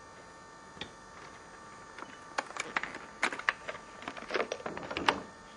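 Irregular small clicks and light knocks of hand tools and parts being handled during motorcycle grip work. There is a single click about a second in, then a quick run of clicks over the last few seconds, with a sharper knock near the end.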